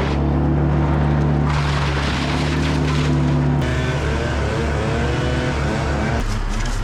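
Engines running steadily, the sound changing abruptly about a second and a half in, again midway, and near the end.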